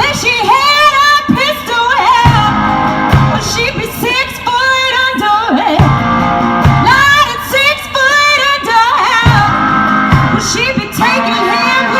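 Song playing: a singing voice holds and bends long notes over guitar, with a steady low beat.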